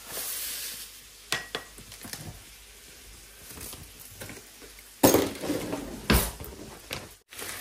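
Plastic food pouch crinkling and rustling as it is handled, with a few light clicks and knocks around the worktop, louder rustling about five seconds in.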